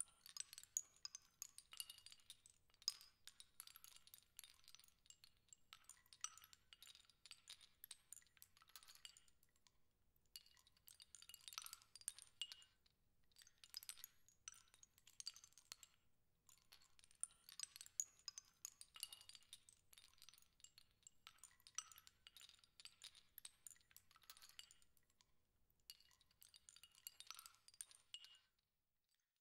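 Faint, high, glassy tinkling and clinking, like small wind chimes or glass chimes. It comes in clusters a few seconds long with short gaps between them, and stops shortly before the end.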